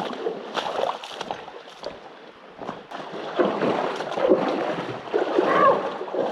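Hikers' feet splashing and sloshing through shallow water, an irregular run of splashes and small knocks that grows louder and busier about halfway through.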